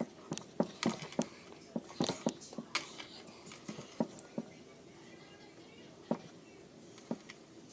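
Slime being squished and poked by hand, giving a run of small wet clicks and pops, thick at first and thinning out after about four seconds.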